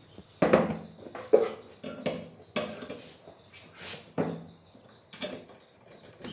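Steel parts knocking and clinking against each other and the workbench as a black steel frame member is handled and a part is fitted to its end, in a series of separate clanks about one a second.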